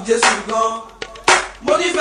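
Music with a steady beat: strong percussive hits about a second apart over melodic and vocal-like lines.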